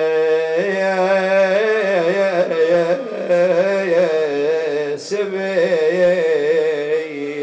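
A man's solo voice chanting a Shia Muharram lament (nai), drawing out long ornamented notes that waver up and down in pitch, with short breaks about three seconds in and again near five seconds.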